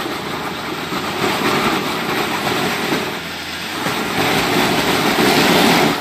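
A 4x4's engine revving hard under load while its tires spin and scrabble on rock, growing louder near the end and cutting off abruptly.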